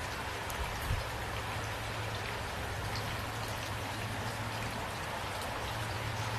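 Steady rain falling, with many small drop ticks over an even hiss and a low steady hum underneath.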